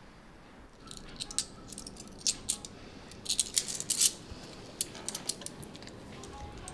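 An irregular string of light, sharp clicks and rattles, like small hard objects being handled, bunched mostly between about one and five seconds in.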